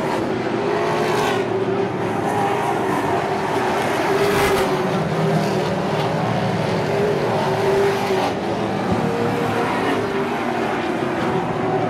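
Several Pro Stock race cars' V8 engines running at racing speed in a close pack, a steady engine drone whose pitch wavers slightly as the cars come past.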